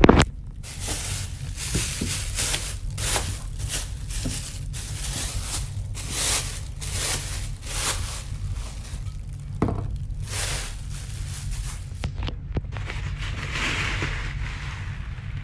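Thin plastic bag rustling and crinkling in a run of short crackles as it is pulled off a glass wine bottle, over a steady low rumble.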